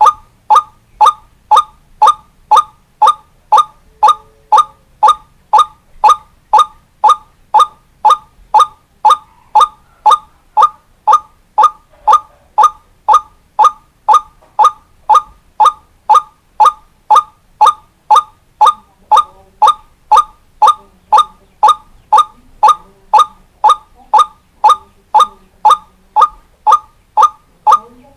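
White-breasted waterhen (ruak-ruak) call, a short hooked note repeated steadily about twice a second, played as a looped lure recording for trapping wild waterhens.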